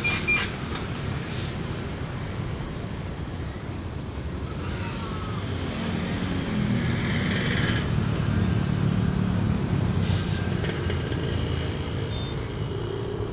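Steady low engine rumble that swells louder for a few seconds about halfway through.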